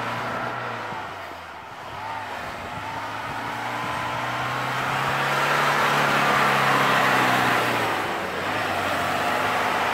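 Land Rover Discovery's 300Tdi turbodiesel engine pulling hard as the vehicle ploughs through deep snow. It grows louder and higher in revs over several seconds, then eases off about eight seconds in.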